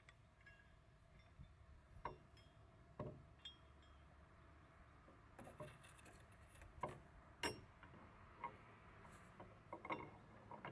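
Scattered light metallic clicks and clinks from a metal cane bolt and its bracket being handled and shifted against a wooden gate post, with quiet between them.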